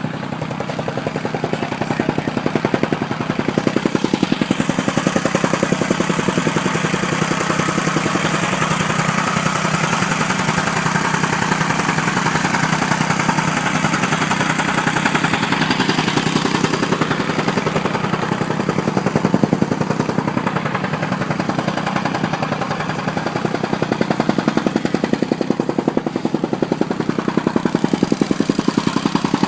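Gas-powered soil tamper running steadily, its engine beating with a rapid, even pounding as it compacts the soil.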